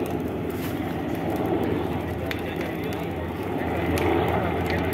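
Distant Sikorsky UH-60L Black Hawk helicopter approaching, a steady drone of its four-blade rotor and twin turbine engines.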